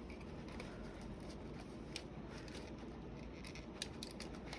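Faint small clicks and light handling noise from work on a laptop's keyboard and ribbon cable, over a steady low room hum.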